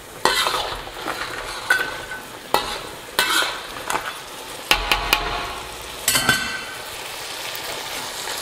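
Metal wok ladle scraping and knocking against a steel wok as crab pieces are tossed in bubbling chili sauce, over a steady sizzle. The stirring stops about six seconds in, leaving the sizzle.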